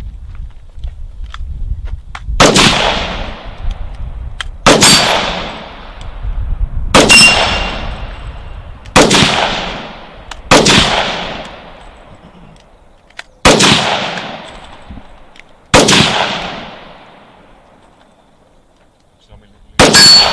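Gunshots fired singly and deliberately on an outdoor range: eight shots, mostly about two seconds apart with a longer gap before the last, each followed by a rolling echo.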